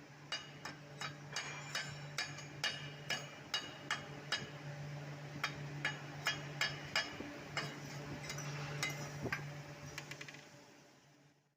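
Hammer tapping on steel, two to three sharp ringing strikes a second, typical of a chipping hammer knocking slag off a stick weld. A steady low hum runs underneath, and the sound fades out near the end.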